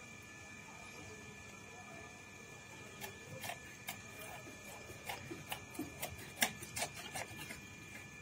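A blade chopping fish on a cutting block: a run of sharp, irregular knocks, two or three a second, starting about three seconds in.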